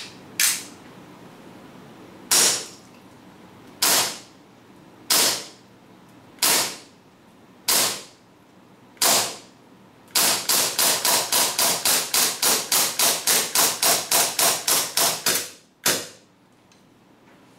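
Tokyo Marui HK.45 gas blowback airsoft pistol with a steel slide firing on green gas: sharp cracks of the shot and slide cycling, first single shots every second or so, then a rapid string of about four shots a second for some five seconds. One last shot comes shortly after the string, emptying the magazine so the slide locks to the rear.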